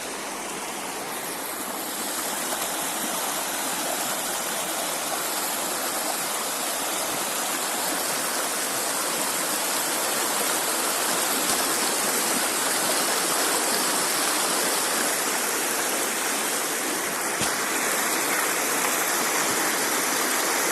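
Rushing water of a forest stream or small waterfall, a loud steady hiss that swells slightly about two seconds in and then holds.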